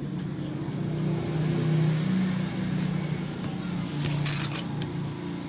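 A motor vehicle engine running steadily in the background, a low hum that wavers slightly in pitch; about four seconds in, a brief cluster of light clicks and rustles as a steel ruler and the leather strip are handled.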